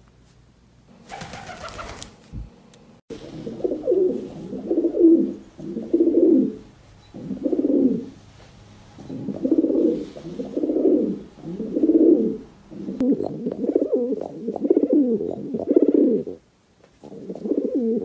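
A male domestic pigeon cooing over and over in low, pulsing phrases: the classic coo, which a pigeon uses either to warn a rival off its territory or to court a female. Here it is aimed at its own reflection. A brief rustling noise comes about a second in, before the cooing starts.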